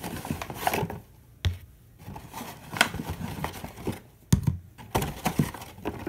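A bag rustling and crinkling, with plastic slime containers knocking and clicking as they are handled and set down.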